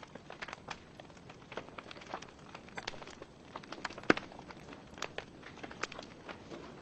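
Wood fire burning in a fireplace, the logs crackling with irregular sharp pops over a faint hiss, one louder pop about four seconds in.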